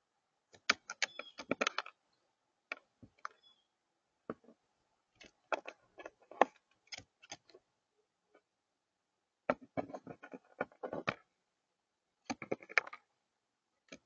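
A crow's beak pecking at food on a hard tabletop: clusters of sharp taps in quick succession, coming in several bouts with short pauses between.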